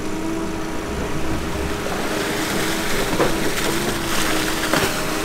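Diesel engine of heavy construction machinery running steadily with a held whine, and a couple of sharp knocks in the second half.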